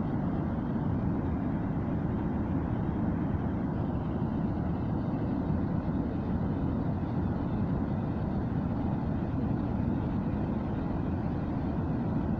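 Waterfall on the river Jerea at Pedrosa de Tobalina, a wide curtain of water falling into a pool, making a steady, deep rush of falling water that does not change.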